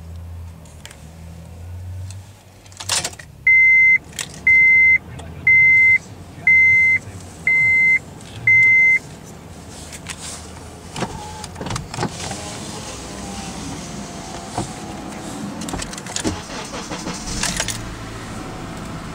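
The dash warning chime of a 2005 Honda CR-V beeps six times, about once a second, with the key switched on. Then the starter cranks briefly and the cold 2.4-litre four-cylinder catches and settles into a fast cold idle around 1,800 rpm.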